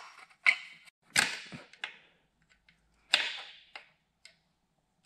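Sharp metal clanks and knocks as a tool works a stuck sheet-metal inner cylinder baffle free from between the cylinders of a Lycoming O-320 engine. About six separate knocks, each briefly ringing, the loudest about a second in.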